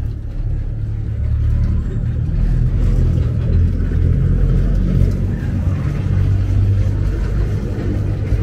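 Steady low rumble of the Glória funicular car running on its rails, heard from inside the car.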